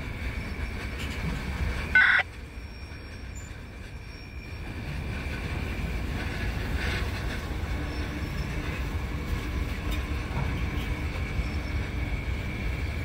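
Freight train of boxcars rolling past: a steady low rumble of the cars with a thin, steady high tone over it, and a short, loud high-pitched screech about two seconds in.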